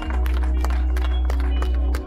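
Music over a loudspeaker system, dominated by a loud, steady deep bass note, with scattered hand claps from the crowd.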